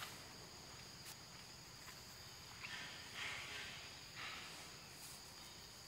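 Forest insects droning steadily on two high pitches, with a few short, soft rustling hisses around the middle.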